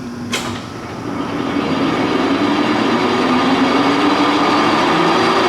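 LeBlond Regal engine lathe's headstock and spindle running up to 1080 RPM: a sharp click a third of a second in, then the gear noise climbs over a second or two and settles into a steady run with a humming gear tone.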